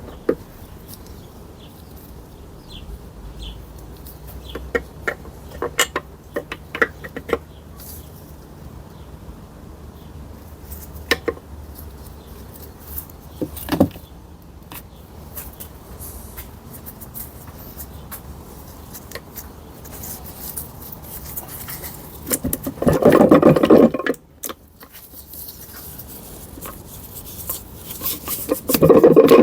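Metal clinks, taps and knocks of tools and gearbox parts being handled during a gearbox teardown, with two loud rasping bursts, one about three-quarters of the way through and one at the end.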